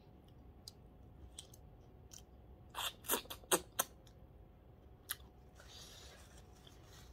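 Close-miked eating sounds: a quick run of sharp crunching clicks about three seconds in, as a morsel picked apart by hand is bitten. This is followed by a soft rustle of a paper tissue being rubbed between the fingers.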